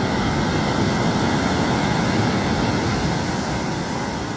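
Ocean surf washing onto a beach: a steady rushing noise with no breaks.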